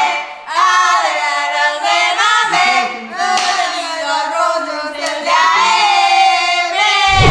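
A group of young people singing a song loudly together, several voices at once, with a short low thump at the very end.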